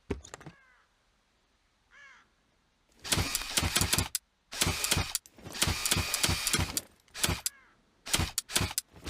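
Automatic crossbow firing in rapid bursts: a fast run of sharp mechanical clacks and twangs, in several strings from about three seconds in, with short pauses between them.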